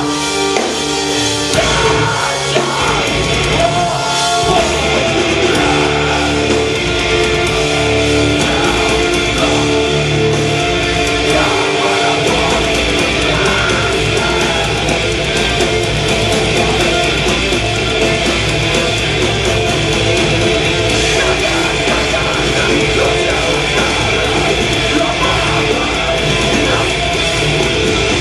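Metalcore band playing live: heavily distorted electric guitars and drums, loud and dense.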